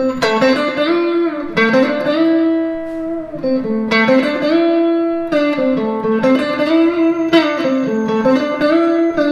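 Stratocaster-style electric guitar playing a blues bending exercise. Single picked notes alternate between a fretted note and a string bent up a whole step to reach the same pitch, with several notes gliding up in pitch as the string is pushed.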